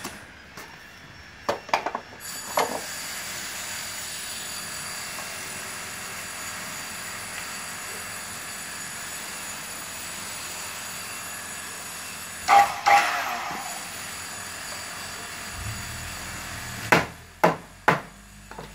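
Sharp knocks and clatter of wood and tools being handled on a building site: a few near the start, a louder clattering knock just past the middle, and three sharp knocks near the end. A steady high-pitched machine whine runs underneath for most of the time.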